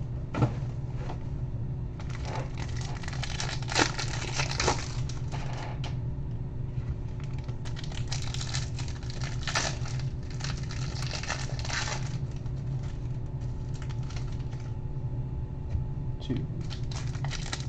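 Trading-card packs being handled and opened: the wrappers crinkle and tear, with light clicks and rustles from the cards and cardboard, in irregular spells.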